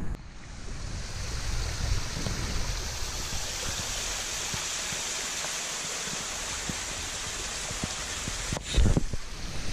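Small waterfall splashing down over rocks into a shallow pool: a steady, even hiss of falling water. A brief low thump stands out near the end.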